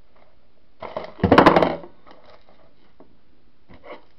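A short, loud scraping rustle with a few sharp clicks in it about a second in, and a brief sharp sound at the very end: close handling of small objects.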